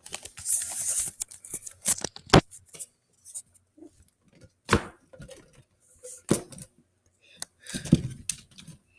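Handling noise: rustling and scraping with scattered clicks, and three louder sharp knocks spread through.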